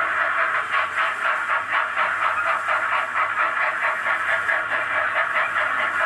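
Recorded steam-locomotive chuffing played as a sound effect from a static display train, a rapid, even run of chuffs that does not let up.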